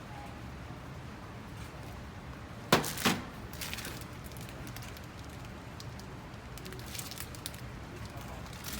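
Two sharp knocks close together about three seconds in, then lighter rustling and clicks: an oven-safe dish or its packaging being handled and set down, over a steady low hum.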